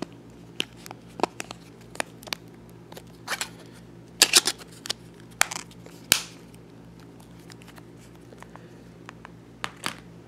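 Old plastic mobile phones clicking and clacking against each other as they are handled and set down on a pile: a scatter of short sharp knocks, loudest in a quick cluster about four seconds in.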